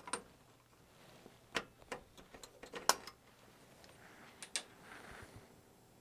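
A handful of light, sharp metal clicks and knocks from a small 3/16-inch mild steel fire grate plate being handled: lifted out of a model steam locomotive's firebox frame and set in a bench vise. The loudest knock comes about three seconds in, and a short soft scrape follows near five seconds.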